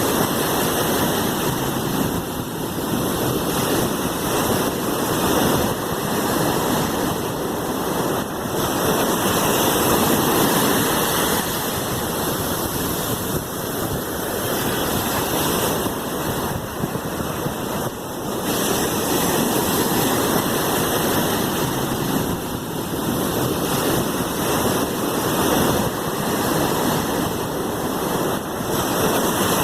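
Sea waves washing: a steady rushing surf noise that swells and eases every few seconds.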